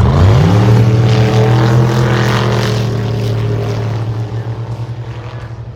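A drag racing car's engine revs up sharply, then holds a steady high note that slowly fades as the car runs away down the strip.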